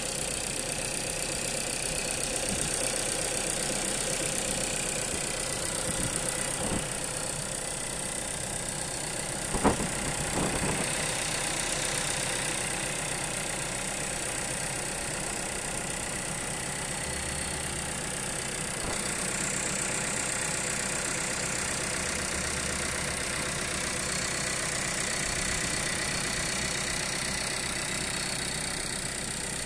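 Volkswagen Group CZCA 1.4 TSI turbocharged four-cylinder petrol engine idling steadily, heard up close under the open bonnet: a brand-new engine running as it should. A sharp knock sounds once about ten seconds in.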